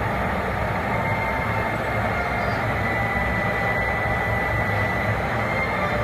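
Steady, unbroken roar of water pouring over Niagara Falls.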